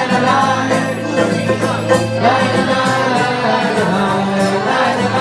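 Irish folk music: a voice singing over instrumental accompaniment with steady held notes.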